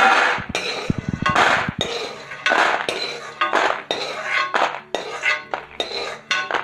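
Metal spoon scraping and clinking against a kadhai as fried mangodi are scooped out, the dry pieces rattling as they are tipped onto a steel plate. There are repeated clatters, with a few duller knocks about a second in.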